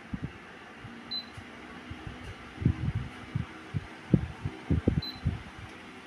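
Oberhof Atembrise NL-42 pedestal fan running with a steady rush of air, while its touch control panel gives a short high beep twice, about a second in and again about five seconds in. Irregular dull low knocks and bumps, the loudest sounds here, fall between the beeps.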